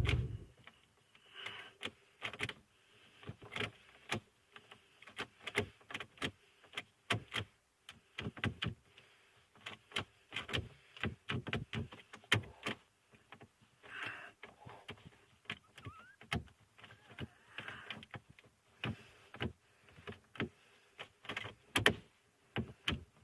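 A car key and its key ring clicking and rattling irregularly in a 1998 Chevy Malibu's ignition cylinder as the key, stuck and refusing to release, is wiggled back and forth.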